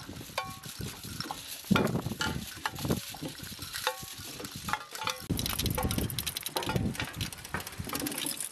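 Wind sculpture of hanging recycled cans and tubes knocking and rattling against each other in the wind, with irregular clicks and brief metallic clinks that ring for a moment. Gusts of wind rumble low underneath, and the rattling grows busier about halfway through.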